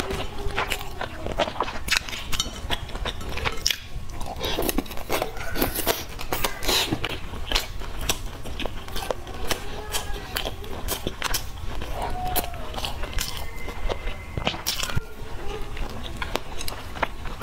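Close-miked chewing of crispy, sesame-coated fried food: a quick, irregular run of crunches as it is bitten and chewed.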